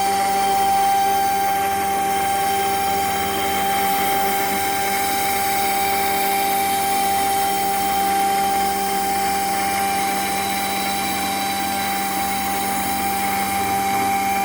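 CNC router spindle running steadily with a constant high whine and a hiss of machine noise, as it carves wood with a V-bit.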